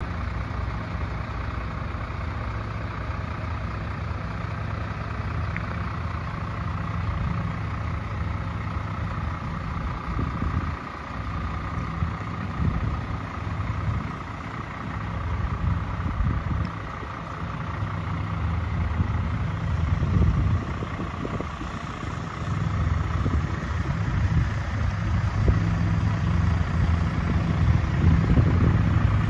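MAN TGM 18.320 truck's six-cylinder diesel engine idling steadily, a little louder over the last several seconds.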